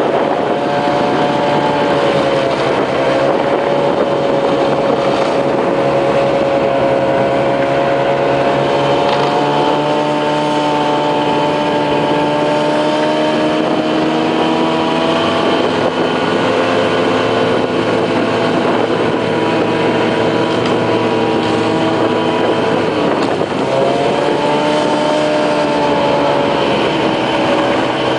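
Snowmobile engine running steadily, its pitch drifting gently up and down a few times as the speed changes.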